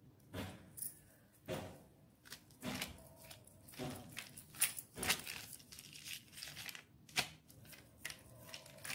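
Oiled polythene sheet crinkling and rustling in irregular crackles under hands pressing and patting yam-and-rice-flour dough flat into a roti.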